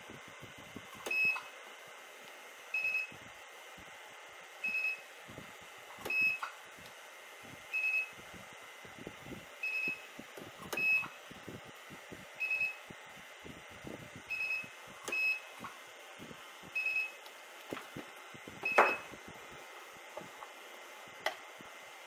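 Handheld battery spot welder with pen probes welding pure nickel strip onto 18650 cells: a short high beep about every one to two seconds, a dozen in all, with sharp snaps of the weld pulses and a faint steady high whine beneath. The loudest crack comes near the end.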